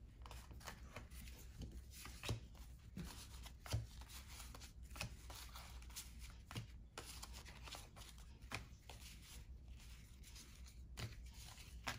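1991-92 Fleer basketball cards being handled and sorted into piles. The cards rustle and slide against each other, with soft, irregular taps as they are set down.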